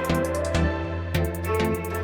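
Background music: electronic instrumental track with a steady bass, sustained synth tones and a regular ticking beat.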